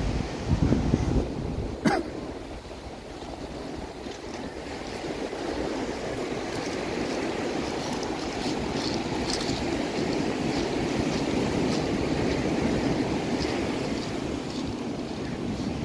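Ocean surf washing onto a sandy beach, a steady rush that swells and ebbs slowly. Wind buffets the microphone in the first second or so, and there is a single sharp click about two seconds in.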